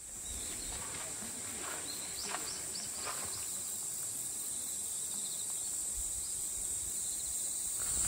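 Steady high-pitched chorus of insects, with a few faint short chirps between about one and a half and three and a half seconds in.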